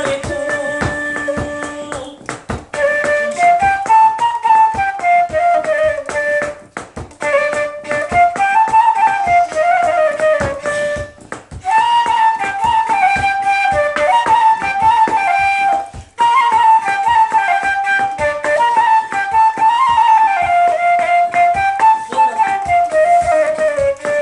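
Silver concert flute playing a melody in phrases that rise and fall, with short breaks between them, over a steady beat.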